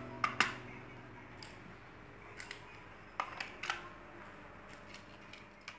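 Light clicks and taps of die-cast toy cars against the plastic Hot Wheels Mega Hauler car carrier as they are slotted into its decks: a sharp pair at the start, then scattered single clicks and a small cluster about three seconds in.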